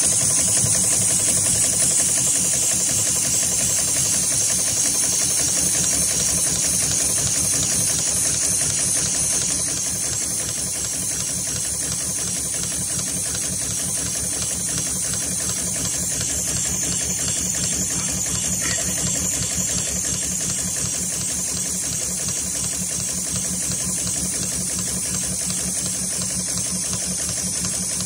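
HighTex 71008R automatic pattern sewing machine running, its needle stitching through braided harness rope in a fast, even rhythm under a steady high hiss. It gets slightly quieter about ten seconds in.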